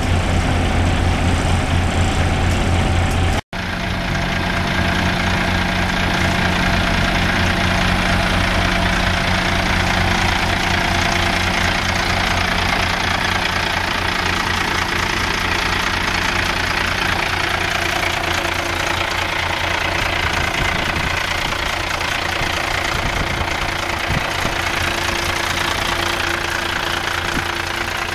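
International 4900 truck's six-cylinder diesel idling with a steady, even clatter, heard close up at the open engine bay. The sound breaks off for an instant about three and a half seconds in, then runs on unchanged.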